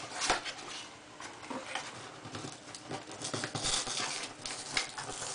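A cardboard processor box being worked open and pulled apart by hand: irregular rustling, scraping and tapping of card, with a louder, denser stretch of scraping and crinkling around three and a half to four seconds in.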